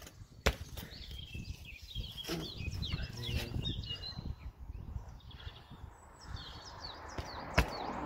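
A few sharp knocks and clunks from a bicycle wheel being worked back into the frame, with a low rumble between them and faint high chirping behind.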